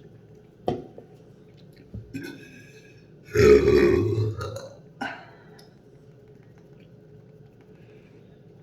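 A person's long, loud burp about three and a half seconds in, lasting over a second. A few short, fainter sounds come before and after it.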